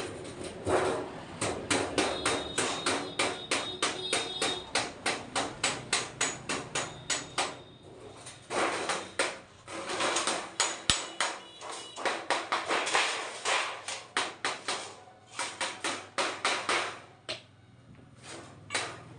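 Rapid, repeated hammering strikes, about three a second, broken by short pauses about eight seconds in and near the end.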